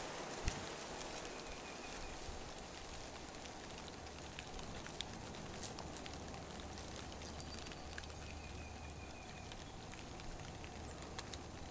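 Quiet outdoor ambience: a steady hiss with scattered small clicks and crackles, and a faint high trill twice, about a second in and again about two-thirds of the way through.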